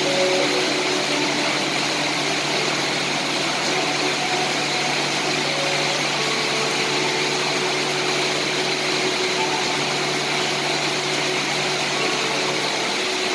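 Steady rain, an even, unbroken hiss with no separate drops standing out.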